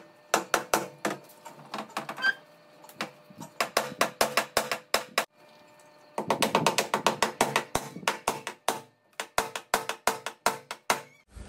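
Claw hammer tapping nails through a plastic hook rack into a wooden wardrobe door, in quick runs of several strikes a second with short pauses between them.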